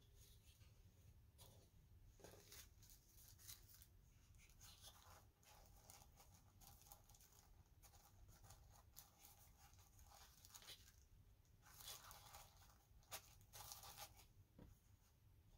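Faint rustling and crinkling of packing materials, a white foam sheet and a blue wrapping, folded by hand and pressed into a small kraft box. Short scratchy rustles come throughout, with louder crinkles near the end.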